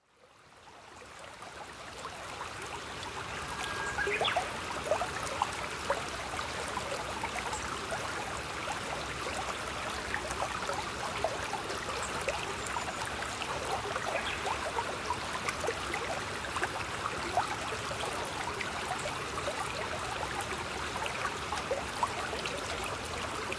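Running water, like a small stream trickling, with many small scattered ticks in it; it fades in over the first two seconds and then holds steady.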